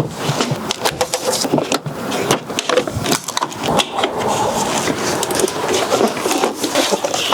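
Busy, irregular clicking, knocking and scraping of hands and tools working on car door interior trim parts.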